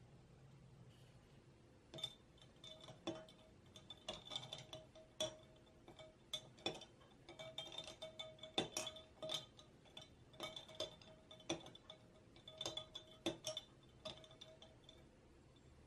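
A spoon stirring ice cubes in a tall drinking glass of iced café au lait, the ice and spoon clinking against the glass in quick, irregular ringing taps. The clinking starts about two seconds in and stops about a second before the end.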